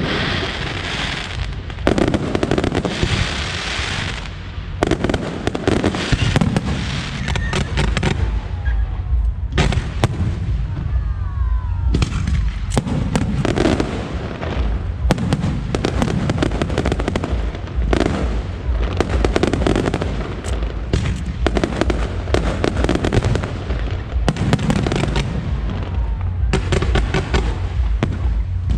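Aerial fireworks show: a dense, continuous run of bursts and crackling, with a few whistling glides about a third of the way through.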